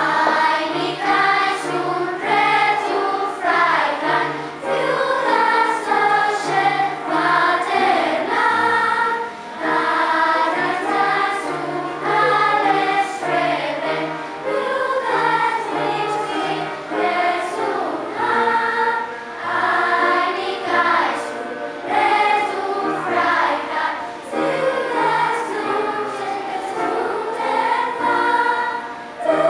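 Children's school choir singing, the voices carrying a continuous melody with short dips between phrases.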